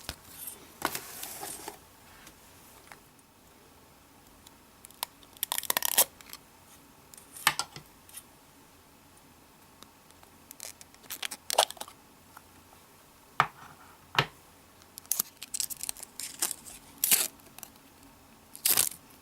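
Plastic packaging being torn and crinkled by hand in short, irregular bursts with quiet gaps between them.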